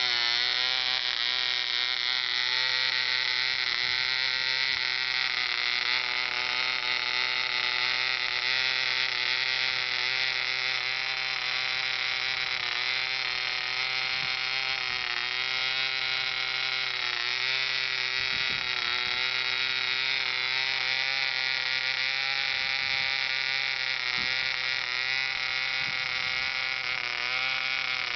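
Banks reproduction Kalper 0.32 cc model diesel engine running continuously on a ground run test, a high-pitched buzz. Its pitch wavers slightly now and then as it runs.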